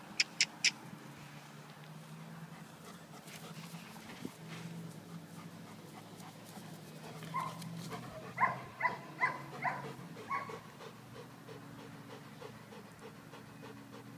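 German Shepherd dog giving a run of about six short, high whines or yips, about three a second, some seven seconds in, then panting steadily. Three sharp clicks come near the start.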